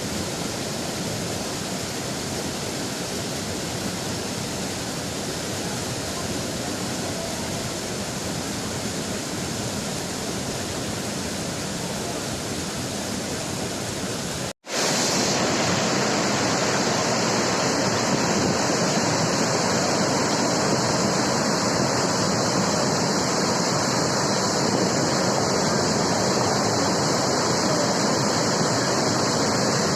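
Steady rush of waterfall water. It cuts out for an instant about halfway through and comes back louder and hissier.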